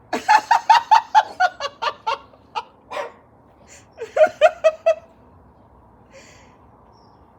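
A person laughing in two bursts of quick, fading 'ha-ha' pulses, the first a few seconds long and a shorter one about four seconds in.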